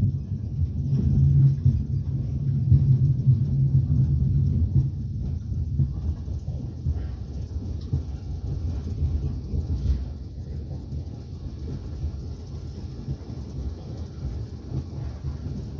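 Moving train heard from inside the carriage: a steady low rumble of the wheels and car body on the rails, a little louder in the first few seconds and then easing slightly.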